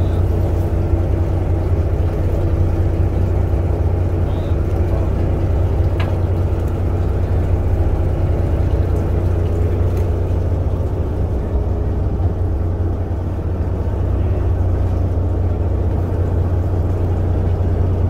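Fishing boat's engine running steadily, a low, even drone, with a single faint click about six seconds in.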